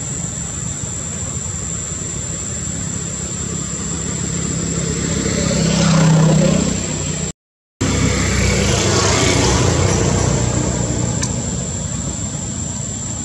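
A motor vehicle engine passing nearby, swelling to its loudest about six seconds in and fading, over steady outdoor background noise with a thin high whine. The sound cuts out for a moment just after the peak.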